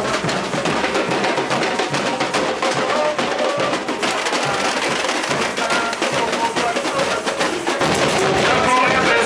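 Samba bateria playing: surdo bass drums and other percussion in a dense, driving rhythm, with voices singing over it, a little louder near the end.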